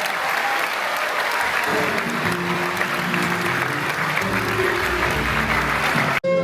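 Audience applauding in a concert hall, with faint instrument notes beneath the clapping; it breaks off suddenly near the end.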